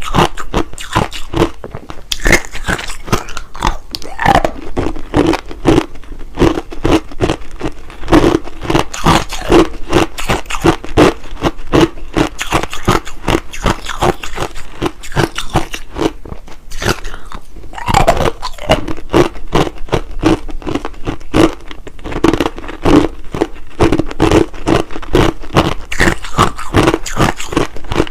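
Clear, hard crushed ice being bitten and chewed: a dense run of loud, sharp crunches, several a second, with a brief pause a little past the middle.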